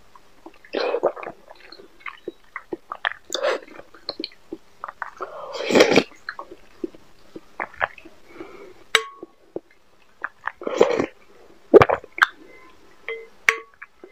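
Close-miked eating sounds: wet slurping and chewing of soft jelly cubes in milk, with short louder slurps now and then. A spoon clinks against the glass bowl twice.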